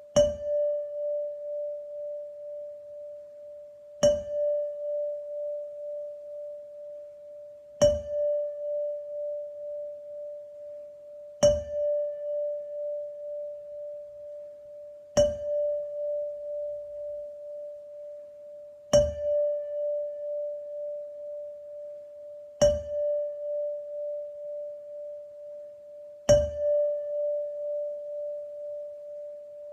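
A single-pitched metal chime struck with a soft mallet eight times, about every three and a half to four seconds, each stroke ringing on in one steady tone that fades with a slow wavering pulse.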